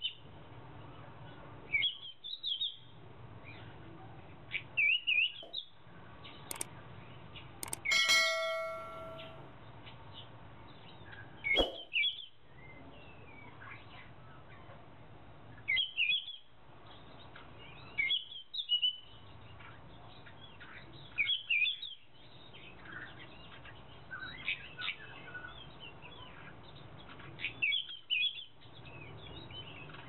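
Wild forest birds calling: a short chirping phrase repeated every two to four seconds, with fainter chirps in between. About eight seconds in come two sharp clicks and a brief ringing ding, the loudest sound.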